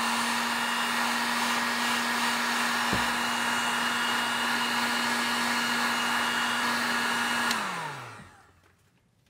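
Handheld electric heat gun running steadily, a hum over a rush of blown air, warming the adhesive behind a car emblem to loosen it. There is a single click about three seconds in. Near the end it clicks off and the motor winds down with a falling pitch.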